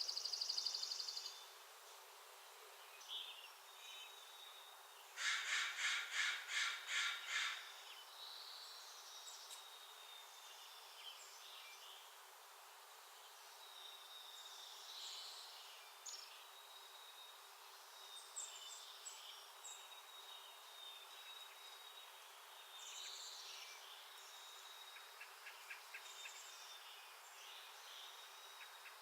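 Backyard songbirds calling around a feeder. A fast high trill comes in the first second, then a loud run of about eight calls, roughly three a second, a few seconds in, followed by scattered faint chirps and thin whistles.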